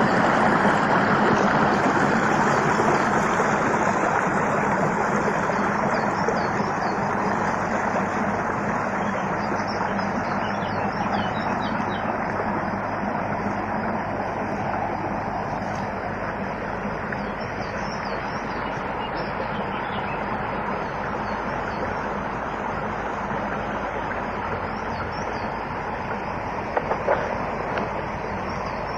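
Rushing water, a steady dense rush that eases off slowly, with faint high bird chirps over it and a couple of short knocks near the end.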